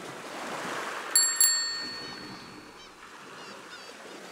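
Bicycle bell sound effect rung twice in quick succession about a second in, the ring trailing off. Repeated short bird calls and a steady wash of noise like sea waves run underneath.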